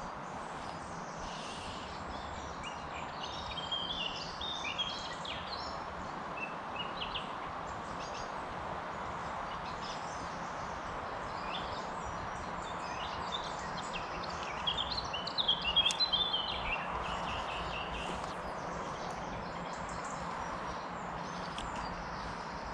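Small songbirds chirping and singing in scattered bursts over a steady outdoor background noise, with the loudest burst of song about fifteen seconds in.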